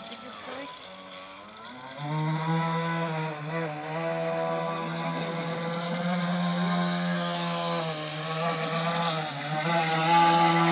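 Electric motor of a T2M Barracuda RC boat converted to brushless, whining at a steady pitch. It drops back sharply at the start and comes up to speed again about two seconds in, then runs steadily and grows louder near the end as the boat passes close. The owner says its propeller and shaft are too small and the shaft vibrates above certain revs, which keeps the boat slow.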